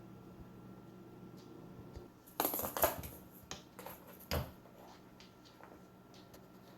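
A cat moving about: a run of short scratchy rustles and clicks starting about two seconds in, with one sharper rustle a couple of seconds later.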